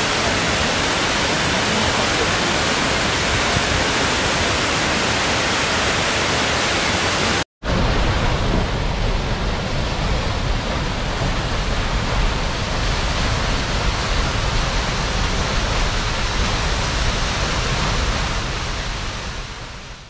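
Steady rushing of Shiraito Falls, many thin curtains of water pouring onto rocks. About seven and a half seconds in it cuts out for a moment and gives way to the deeper, heavier rushing of Otodome Falls, a single plunging waterfall, which fades out near the end.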